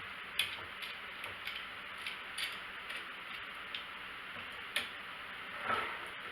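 Irregular light clicks and taps, about a dozen spread unevenly, over a steady hiss.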